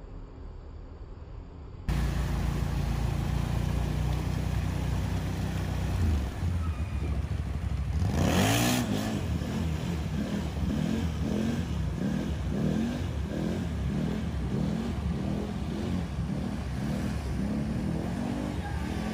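All-terrain vehicle engine revving up and down over and over, its pitch rising and falling in quick repeated waves, as it ploughs through deep floodwater. A loud rush of water comes about 8 seconds in.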